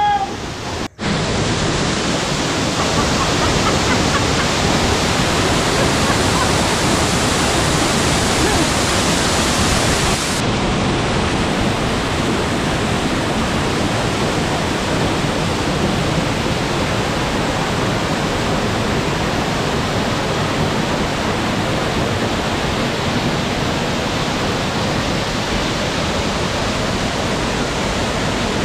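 Waterfall pouring onto rocks close by: a loud, steady rush of water that drops out for an instant about a second in.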